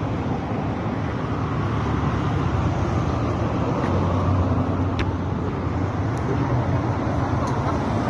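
Steady road traffic noise from cars on a city street, with a low engine hum. A single sharp click about five seconds in.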